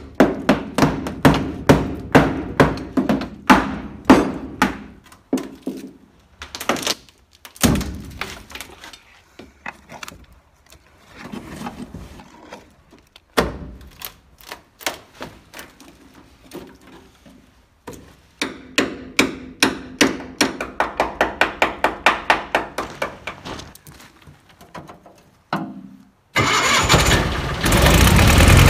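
Hammer blows on the rotten wooden floor of a box truck, in fast runs of about two to four strikes a second with scattered knocks and cracks between as the boards are broken and pried up. Near the end a loud steady engine-like running noise starts suddenly.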